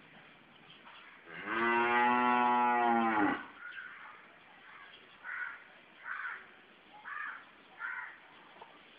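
A cow mooing once, one long call of about two seconds that starts about a second and a half in.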